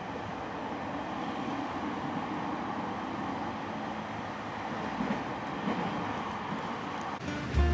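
Inside a moving train carriage: a steady rumble and hiss of the running train heard from a passenger seat. Background music comes in near the end.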